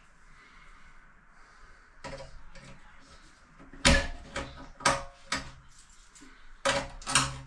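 Metal mounting clips clicking and clanking against the rim of an upturned stainless steel sink as they are fitted by hand. A string of sharp knocks starts about two seconds in, the loudest about four seconds in, and the steel rings briefly after some of them.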